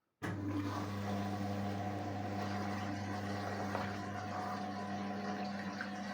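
Indesit WISN 101 washing machine during its rinse cycle: water starts flowing through it abruptly a moment in, with a steady electric hum running under the rush of water.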